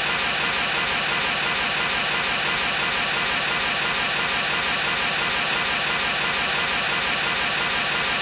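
White-noise test signal from a measurement generator played through a DIY soundbar, used to measure its bass response with a measurement microphone. It is a steady, even hiss at constant level.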